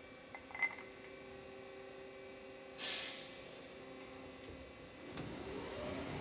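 CNC lathe humming steadily, with a sharp click about half a second in as the metal bowl blank is set in the chuck, a short hiss near the middle, and a rising whir near the end as the spindle starts turning the part under coolant spray.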